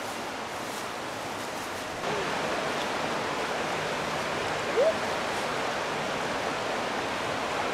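Trout creek running over rocks and rapids: a steady rush of water, a little louder from about two seconds in. One short rising call cuts through it about five seconds in.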